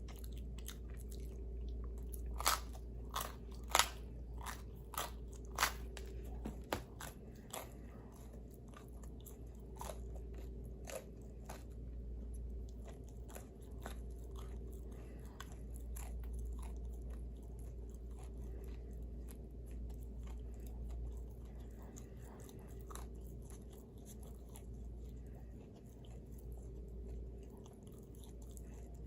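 Close-miked chewing of pizza: crisp crunching bites, loudest and most frequent in the first several seconds, then quieter steady chewing. A steady low hum runs underneath.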